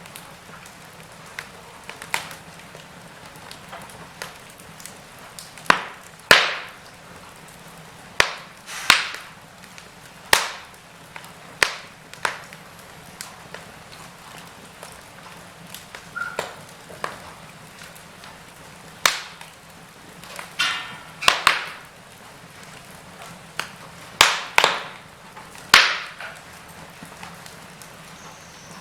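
Wood fire crackling in a fireplace: a steady soft hiss with irregular sharp pops and snaps, a few of them louder.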